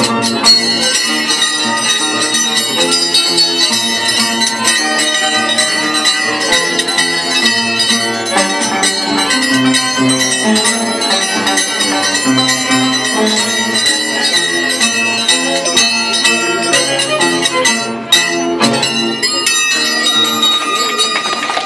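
Scissors dance music: the dancers' steel tijeras, two loose blades clashed in one hand, clink in a quick rhythm and ring like small bells over an Andean harp and violin tune. The playing drops out briefly about eighteen seconds in, then resumes.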